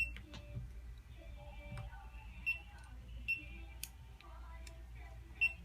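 A few sharp small clicks with a brief high ring, scattered irregularly over a few seconds, over a steady low hum.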